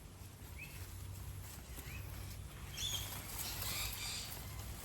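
Wild birds calling: two short rising chirps in the first two seconds, then a busier run of high chirps about three to four seconds in, over light rustling.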